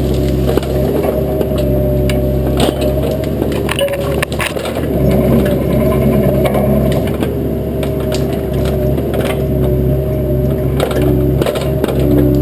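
Bobcat 337 mini excavator's diesel engine running steadily, with brush and small branches repeatedly crackling and snapping as the machine crushes them.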